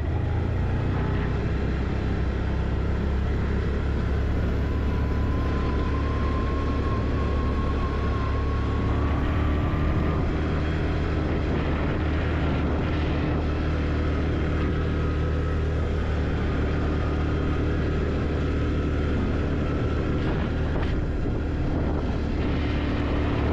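Quad bike (ATV) engine running steadily under way, with a thin whine that rises slowly in pitch for a few seconds about a quarter of the way in.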